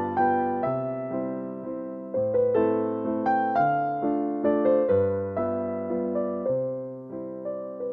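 Calm classical piano music, single notes and chords struck and left to ring.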